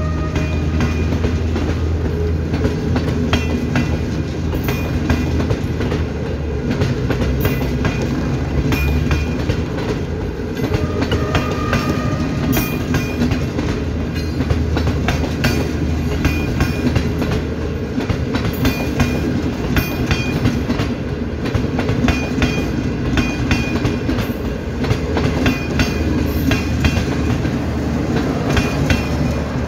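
CNR passenger coaches rolling past at close range: a steady rumble with a quick, continuous clatter of wheels over the rail joints.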